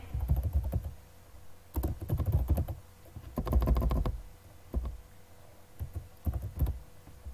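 Typing on a computer keyboard: several quick runs of keystrokes, with short pauses between them.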